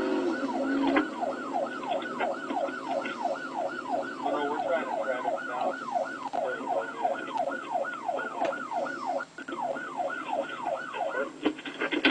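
Police car siren on its fast yelp setting, its pitch sweeping up and down about three times a second, steady and unbroken apart from a brief dip about nine seconds in.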